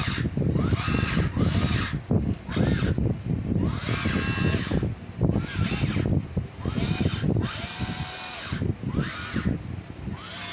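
Electric motors of a radio-controlled CAT excavator whining in repeated bursts, about one a second, the pitch rising and falling as the control stick is pushed and released while the model drives back and forth on its tracks. A low rattle runs underneath.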